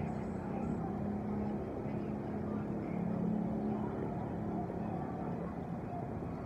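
Steady outdoor rumble of vehicle traffic, with no sharp sounds standing out.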